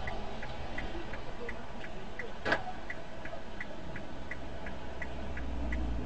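A car's indicator clicking steadily, about three ticks a second, over the low rumble of the engine inside the cabin, with one sharper, louder click about two and a half seconds in.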